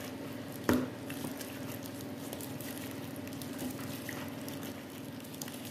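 Gloved hand mixing small whole fish in a wet spice marinade in a plastic bowl: soft squelching of fish and sauce and rustling of the plastic glove, with one sharp knock less than a second in, over a steady low hum.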